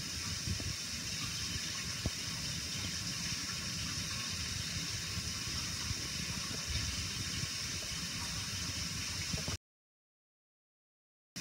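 Kitchen tap running cold water into a bowl to cool a hard-boiled egg: a steady rush of water that cuts off abruptly near the end.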